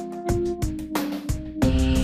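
Background music with a steady beat of plucked notes, becoming fuller and louder near the end.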